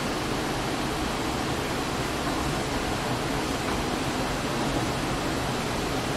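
Steady, even hiss of room noise with nothing standing out.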